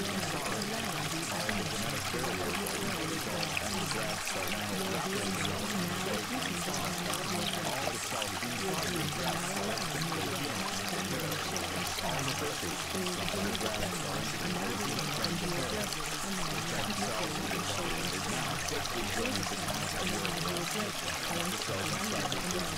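Steady, unbroken rushing sound like running water from a flowing stream.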